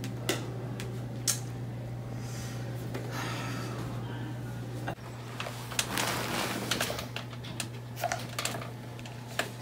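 Irregular small taps and clicks of someone texting on a phone, over a steady low room hum, with some rustling of clothing and handling.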